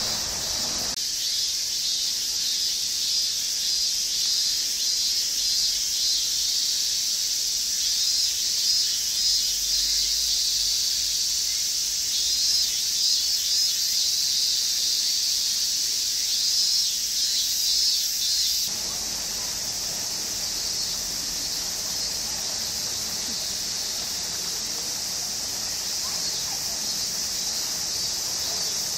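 A chorus of summer cicadas buzzing in a high, unbroken drone. It pulses and is a little louder through the first two-thirds, then goes on more evenly.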